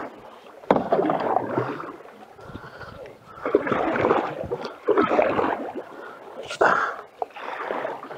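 Canoe paddle strokes in moving creek water: four rushes of splashing and gurgling as the blade dips and pulls, a few seconds apart.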